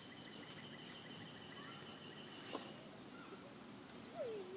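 Faint outdoor ambience of insects chirring steadily, one with an even, pulsing trill. A single sharp click comes about two and a half seconds in, and a short whine, plausibly a dog whimpering, near the end.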